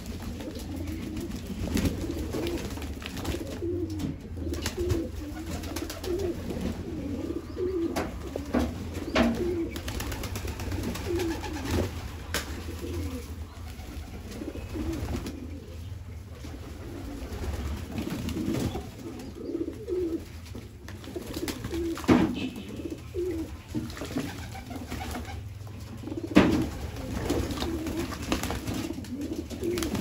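Pigeons cooing on and off, a continuous low warbling, over a steady low hum. A few sharp slaps or clicks cut through, the loudest a little past the middle and near the end.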